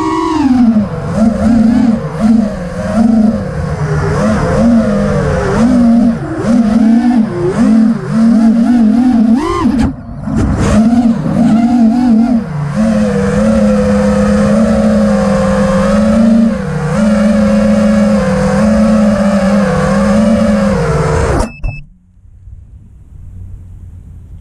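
Five-inch FPV quadcopter's Emax RS2205 2300 kV motors and HQ 5x4x3 props whining in flight, heard close up from the quad's onboard camera, the pitch rising and falling with the throttle. The motors cut off suddenly about 21 seconds in as the quad lands and disarms.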